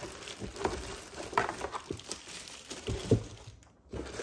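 Plastic packaging bags crinkling and rustling as bagged parts are handled and lifted out of a molded pulp tray, with a soft knock about three seconds in.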